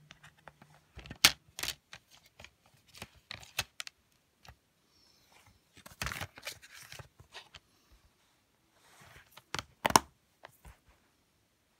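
Plastic DVD cases and a cardboard slipcover being handled: scattered sharp clicks and knocks with a stretch of rustling, the loudest click about ten seconds in.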